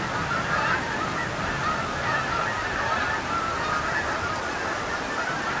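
A large flock of wild geese honking as it flies overhead, many overlapping calls at once.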